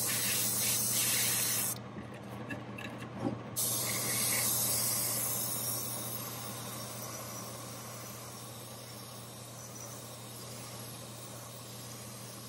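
Airbrush spraying paint in two hissing bursts, the first about two seconds long and the second starting about three and a half seconds in and trailing off. A steady low hum runs underneath.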